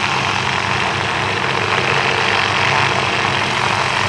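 An aerobatic biplane's piston engine running steadily overhead, with a broad hiss over it.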